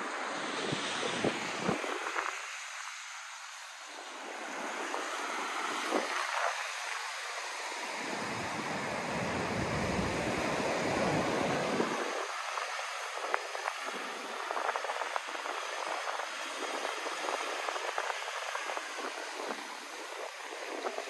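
Ocean surf washing over rocks and sand in the shallows, swelling to its loudest about halfway through and then ebbing, with wind rumbling on the microphone.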